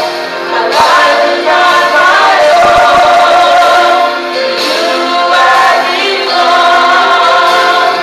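Two women and a girl singing a gospel song together into handheld microphones, with long held notes.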